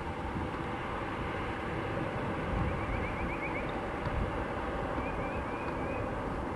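Distant Airbus A320neo's CFM LEAP-1A jet engines giving a steady rumble with a held whine as the airliner rolls out on the runway after landing. Two short runs of faint high chirps come through, one a little before the middle and one near the end.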